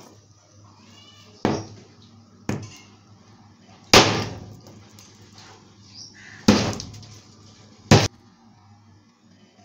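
A hammer striking a hard-candy lollipop on a tabletop five times, each blow a sharp crack as the candy shatters. The third and fifth blows are the loudest.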